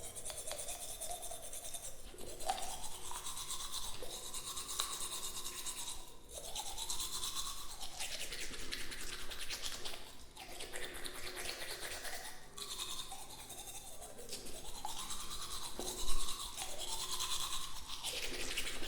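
Teeth being brushed with a toothbrush: fast scratchy scrubbing strokes in stretches, with short pauses about every few seconds. A brief louder knock comes about sixteen seconds in.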